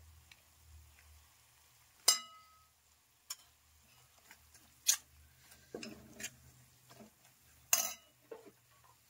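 Steel spatula stirring and scraping spices into frying onions in a stainless steel kadhai, with a few sharp metallic clinks against the pan; the loudest, about two seconds in, rings on briefly.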